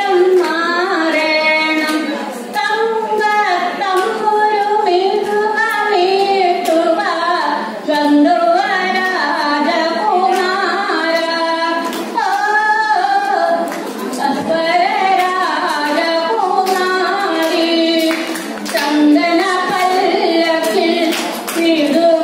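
A woman singing solo into a handheld microphone: a slow melodic song with long held notes that bend in pitch.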